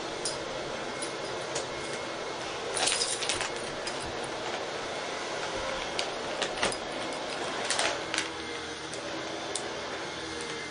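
Steady hiss of room and recording noise with scattered light clicks and rustles, busiest about three seconds in and again around six to eight seconds.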